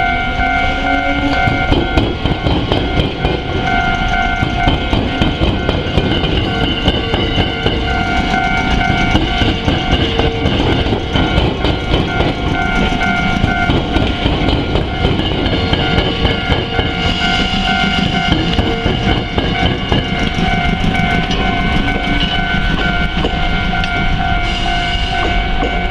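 A Japanese level-crossing warning bell rings throughout in an even, repeating ding while an Iyotetsu 700 series electric train passes through the crossing. The train's motors whine upward in pitch in the first couple of seconds as it pulls away, then its wheels clatter in a rapid run of clicks over the rail joints.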